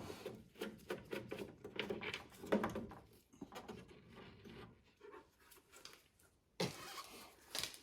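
Screws being backed out of a plastic turn-signal housing, a run of small clicks and ticks, with two louder scraping rustles near the end as the plastic housing is handled.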